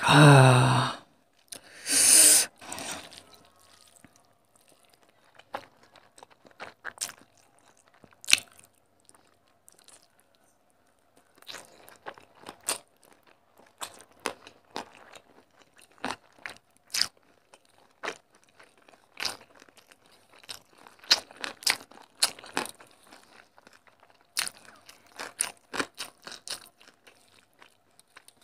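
Close-miked mouth sounds of eating rice and curry by hand: irregular wet chewing, smacking and crunching clicks. It opens with a loud vocal sound whose pitch falls over about a second, followed by a loud breathy burst about two seconds in.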